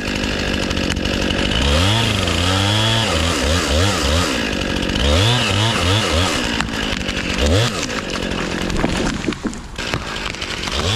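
Chainsaw cutting through the hinge of a tree being felled, its engine revving up and falling back several times. About eight seconds in the engine drops away, leaving a stretch of rough, irregular noise.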